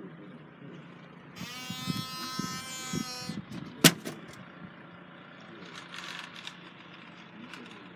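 A buzzing tone lasting about two seconds, then a single sharp click, over a low steady rumble.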